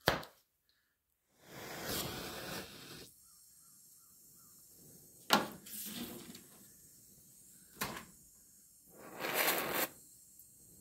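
Welding on a car's sheet-metal body panel in four short bursts of about a second each, filling in a spot and a pinhole in the repair seam.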